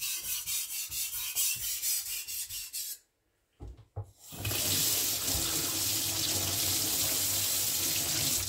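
A cleaver blade is stroked quickly back and forth on a diamond sharpening plate, a rhythmic rasping that stops about three seconds in. After a couple of clicks, a kitchen tap runs steadily into a stainless steel sink.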